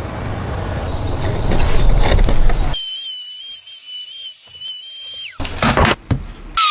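A power tool working wood, its noisy running growing louder, then giving way about three seconds in to a high, wavering whine lasting a couple of seconds, followed by a few sharp knocks.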